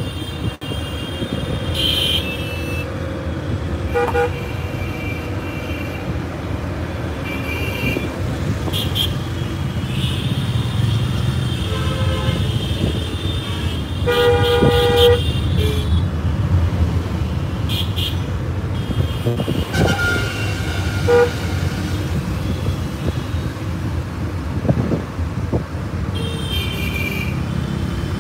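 Road traffic heard from inside a car's cabin: vehicle horns honking again and again in short toots, over the steady low rumble of the engine and road noise.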